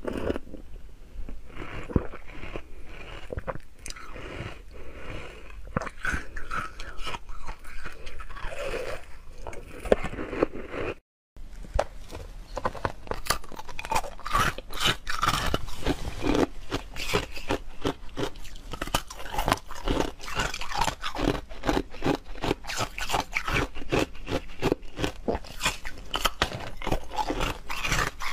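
Close-miked biting and crunching of frozen ice in the mouth: first bites of frozen milk ice, then, after a brief silent break about eleven seconds in, clear ice cubes crunched and chewed in quick, dense succession.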